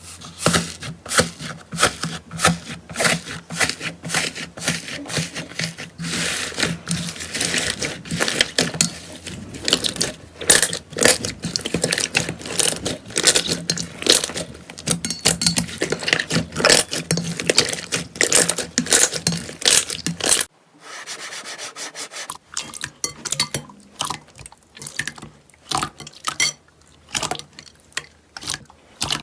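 Slime being squeezed and worked by hand, a dense run of sticky crackling clicks and pops. About twenty seconds in it cuts off, then goes on quieter and sparser.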